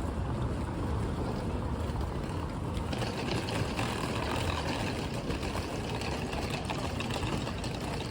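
Steady low rumble of a ship under way, as heard aboard a cross-Channel ferry, with a rushing hiss that grows stronger about three seconds in.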